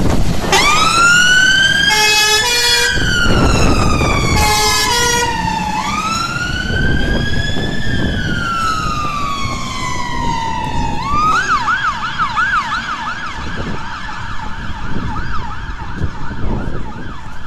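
Scania fire engine's siren starting up in a slow wail that rises and falls twice, then switching to a fast yelp about eleven seconds in. Two short horn blasts come at about two and four and a half seconds, over the truck's engine rumble.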